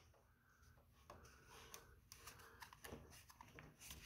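Near silence, with faint scrapes and clicks of an aluminium frame rail being slid into a plastic end cap, starting about a second in.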